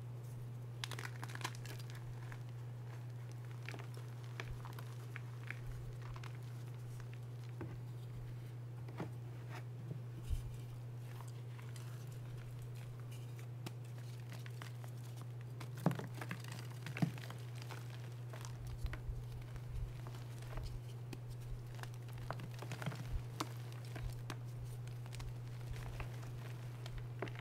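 Hands crushing reformed gym chalk: a disc squeezed until it cracks and crumbles into powder, giving grainy crunching and crackling with a few sharper snaps around the middle and more toward the end. A steady low hum runs underneath.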